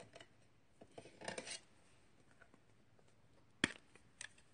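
Small handling noises of ink-stamping supplies on a tabletop: a brief rubbing scrape about a second in, then one sharp click and a softer tick near the end.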